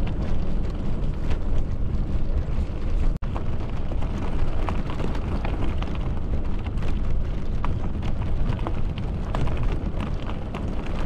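Bicycle tyres rolling over loose gravel: a steady low rumble sprinkled with crunches and small clicks of stones. The sound drops out for an instant about three seconds in.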